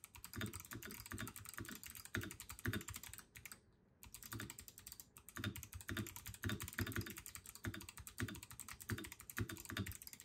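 Typing on an ASUS ROG Azoth mechanical keyboard with clicky ROG NX Storm switches: rapid keystrokes, each a sharp click, with a brief pause about four seconds in.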